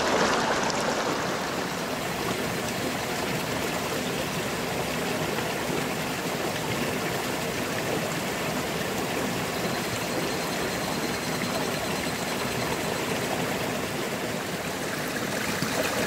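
Shallow, rocky mountain stream running steadily over stones.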